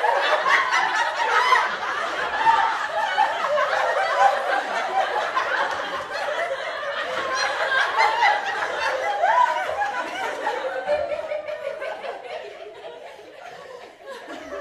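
Sitcom laugh track: many audience members laughing together, dying away over the last few seconds.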